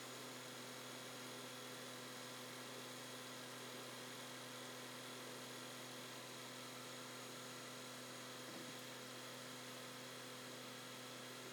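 Faint, steady electrical hum with a low drone and overtones, and no other sound.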